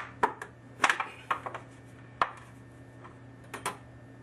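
Irregular sharp clicks and light metal knocks, about ten of them, as a sheet-metal heat shield is handled and fitted against copper pipe and wooden joists to keep the torch flame off the wood.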